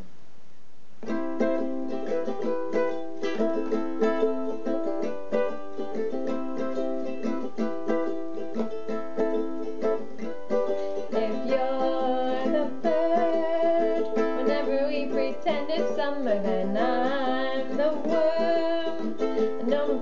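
Ukulele strummed in a steady rhythm, starting about a second in, playing the song's intro chords. From about eleven seconds a wordless voice carries a wavering melody over the strumming.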